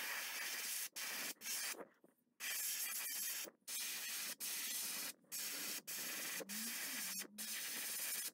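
Airbrush spraying opaque red acrylic paint in short hissing bursts as the trigger is pressed and released, about ten times.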